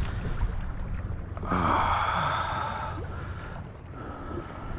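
Wind and water noise on a kayak at sea, a steady low rumble, with a louder hiss lasting about a second and a half starting about a second and a half in.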